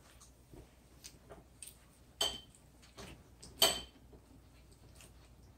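Tableware clinking and knocking on a plate as a sandwich is put together: soft scattered ticks, with two sharper knocks about two and three and a half seconds in, the second the loudest.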